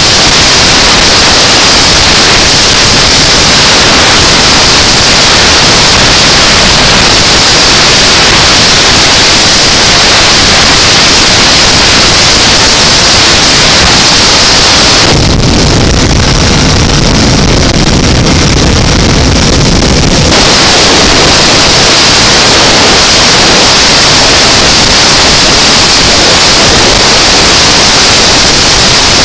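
Loud, steady wind rush on the microphone of a motorcycle at highway speed, a hiss across the whole range with no engine note standing out. For about five seconds midway the hiss dulls and a deeper low rumble takes over, then the hiss returns.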